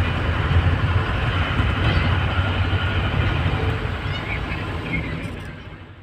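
Steady engine and road rumble heard from inside a moving vehicle's cabin, fading out near the end.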